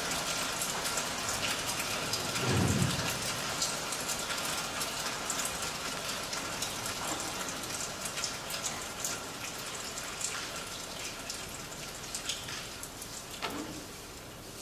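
Rain-and-thunder soundscape playing as the dance's accompaniment: a steady hiss of rain, a deep rumble of thunder about two and a half seconds in, and the whole slowly fading.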